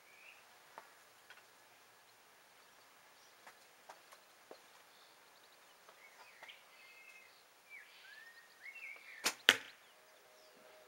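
A Ben Pearson Woodsman Hunter recurve bow shot near the end: a sharp snap as the string is released, then a fraction of a second later a louder smack as the arrow hits a cardboard box target. The shot is described as so quiet. Faint bird chirps come in the seconds before.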